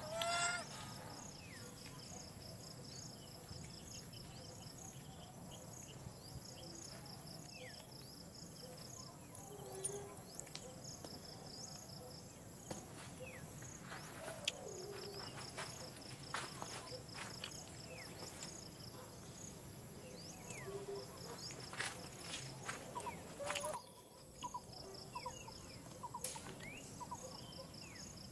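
Insects trilling outdoors in long runs of rapid, even, high-pitched pulses. A short high animal call sounds right at the start, and there are scattered light clicks and faint chirps.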